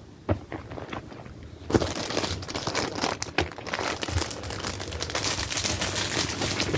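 Plastic packaging crinkling and rustling as small kit items are handled and packed into a bag's pouch: a few light clicks at first, then continuous crinkling from about two seconds in.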